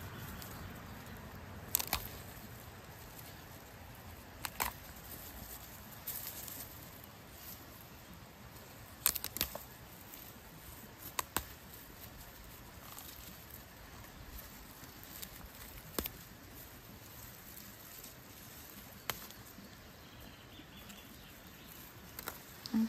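Sharp snaps every few seconds, some in quick pairs, with light rustling, from fiddlehead fern stems being broken off by hand in the undergrowth.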